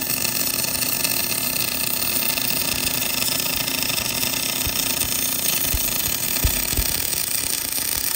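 Portable bore welder's arc burning steadily inside a worn excavator link pin bore, an even hiss as it lays a build-up bead around the bore for re-machining. A few faint low thumps come in the second half.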